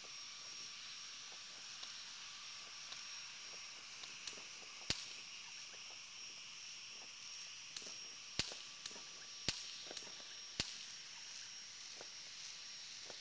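Faint, distant fireworks and firecrackers popping: scattered sharp cracks, one about five seconds in and three more between eight and eleven seconds in, with smaller pops between, over a steady high-pitched hum.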